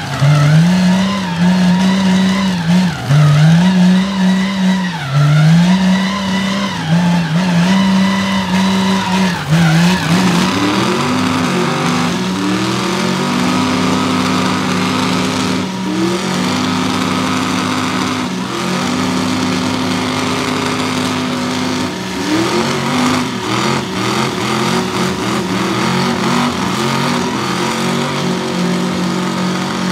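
Mega mud truck engines at high revs with tires spinning on wet concrete. For the first ten seconds the engine note rises and falls every couple of seconds, then it holds a steady high pitch at full throttle as the tires keep spinning.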